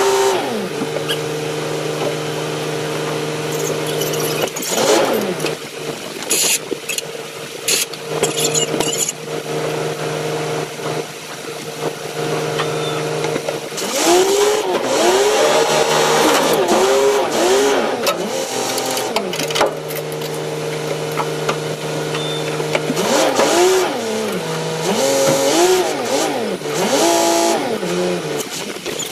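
A boat engine running at a steady speed, then revved up and down in a series of quick throttle blips as the mooring boat manoeuvres against the tanker's bow, settling back to a steady run between the bursts.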